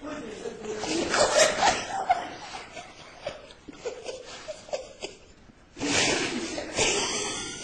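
Laughter in uneven bursts, fading to a lull about five seconds in, then breaking out again.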